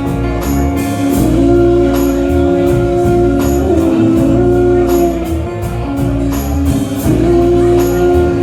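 Live band playing an instrumental passage: long held chords over a steady beat of about two strokes a second.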